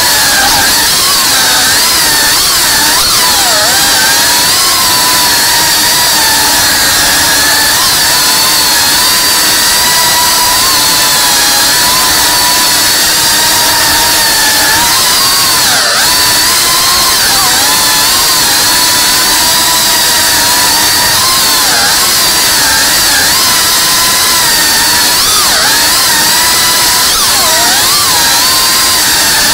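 FPV quadcopter's brushless motors and propellers whining loud and continuously, the pitch wavering up and down with throttle and dropping in brief sharp dips.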